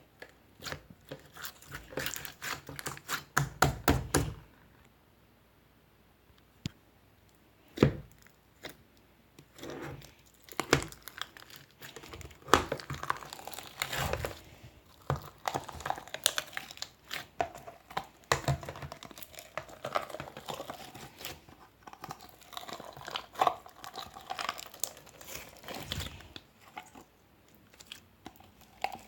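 Irregular crinkling and crackling of something being handled, with a quick run of sharp clicks in the first few seconds, a pause, and a single knock about eight seconds in.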